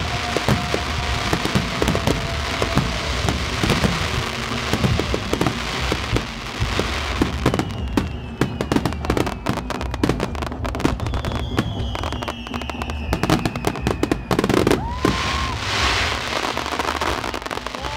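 Fireworks display: rapid bursts and dense crackling throughout, with a couple of slowly falling whistles in the middle.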